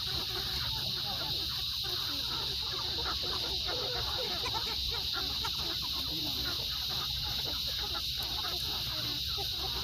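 A flock of meat chickens clucking continuously, many birds calling over one another at once, over a steady high-pitched hiss.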